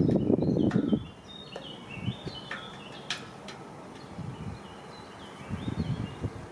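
Birds singing, with short chirping phrases that step down in pitch. A loud low rumble in the first second cuts off suddenly, and a few low thumps come near the end.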